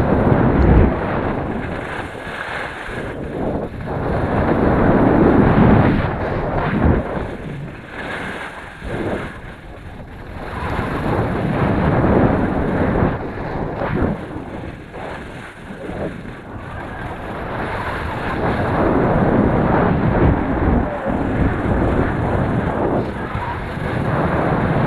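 Wind rushing over an action camera's microphone while skiing downhill, mixed with skis scraping and hissing over packed, groomed snow. The rush rises and falls every few seconds.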